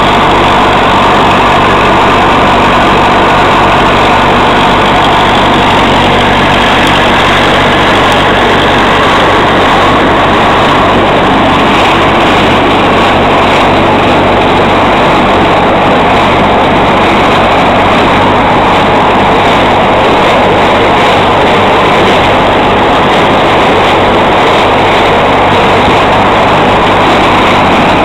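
Massey Ferguson 178 tractor's diesel engine running steadily under working load, heard close up from the tractor, mixed with the running of a trailed corn picker as it strips ears from the stalks and elevates them into its bin.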